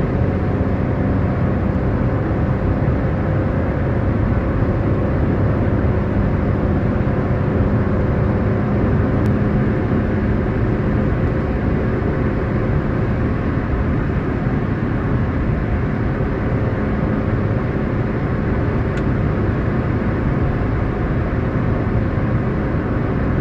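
Car driving along a road, heard from inside the cabin: a steady engine hum under even tyre and road noise.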